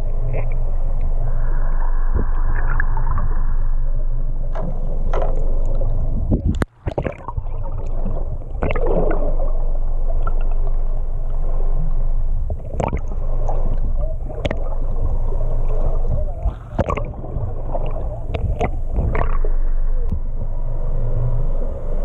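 Boat engine running steadily, with irregular knocks and splashing of water against the hull. The sound drops out briefly about six and a half seconds in.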